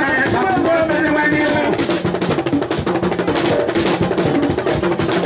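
Live aloukou music: dense, fast drumming, with a voice singing over it near the start.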